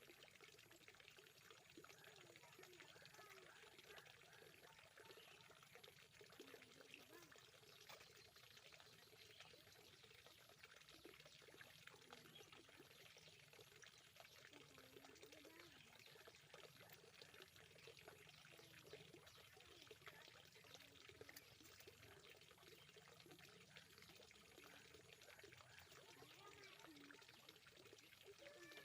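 Faint, steady pouring water at a fishpond, with faint distant voices.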